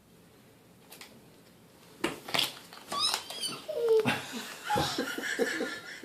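High-pitched squealing cries and laughter that start about two seconds in, after a couple of seconds of near quiet with a faint click or two.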